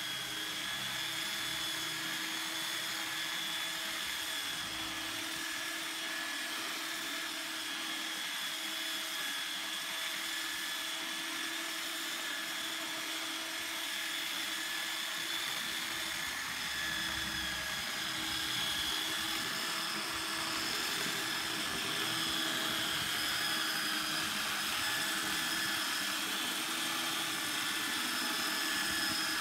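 Power sander running steadily on a wooden tabletop: a constant motor whine over a sanding hiss, growing a little louder in the second half.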